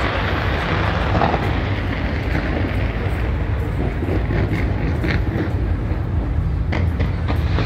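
Fireworks going off in a continuous low rumble, with several sharp cracks in the second half.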